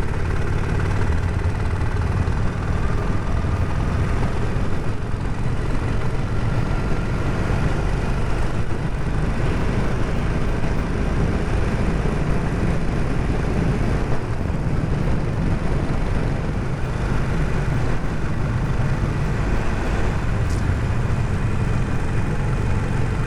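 Harley-Davidson Sportster Forty-Eight's air-cooled V-twin running steadily as the bike is ridden, picked up on the rider's clip-on microphone along with low wind rumble on the mic.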